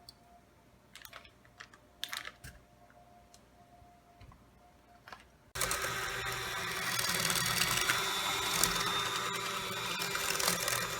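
A few light clicks and knocks, then about halfway through an electric mixer switches on suddenly and runs steadily, creaming butter and sugar.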